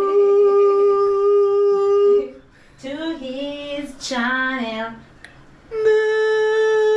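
A high voice singing long held notes: one steady note, a short wavering phrase after a brief pause, then another long held note, typical of a drawn-out sung chant of the word 'subscribe'.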